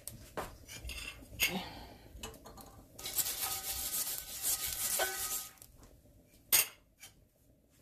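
Kitchenware being handled: a few clinks and knocks of a plate, then about two and a half seconds of scraping and rubbing on a Lodge cast-iron skillet, ending in one sharp metallic clack.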